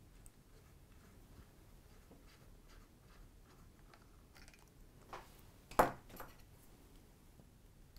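Faint small ticks of a Torx T5 screwdriver turning out a heatsink screw in a MacBook Pro. Then a few clicks and one sharp clack about six seconds in as the screwdriver is set down on the table.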